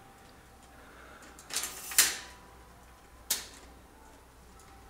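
Small bells jingling in two short bursts about a second and a half apart, the first the louder.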